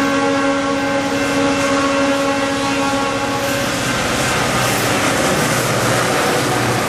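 EMD GP38-2 diesel locomotives passing close by at a grade crossing. The horn's steady chord sounds until about three seconds in, then gives way to a loud rumble of diesel engines and wheels on rail as the engines go past.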